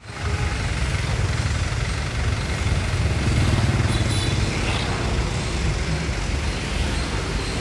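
Steady street traffic with a low engine rumble from passing motorbikes, swelling a little around the middle.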